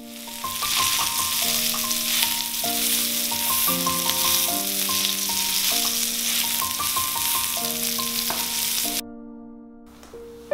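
Beef steak sizzling as it sears in a hot oiled pan, a dense steady hiss that cuts off abruptly about nine seconds in. Soft piano music plays over it.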